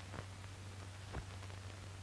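Background noise of an old film soundtrack: a steady low hum under even hiss, with two faint pops, about a fifth of a second and just over a second in.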